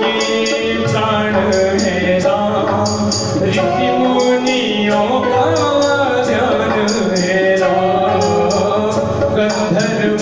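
Man singing a devotional bhajan into a microphone over music with a steady, evenly spaced beat.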